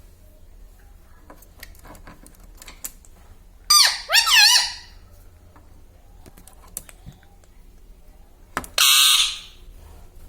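Indian ringneck parakeet calling twice: a quick run of warbling chirps about four seconds in, then a harsh screech near nine seconds, with faint small clicks between.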